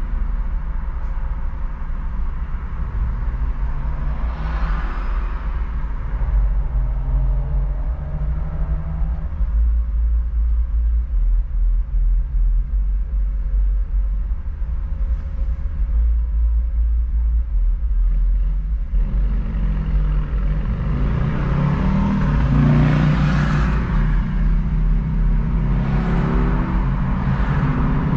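Car driving on city streets: a steady low road rumble, with the engine's pitch rising as it picks up speed a few seconds in and again in the last third, and swells of traffic noise.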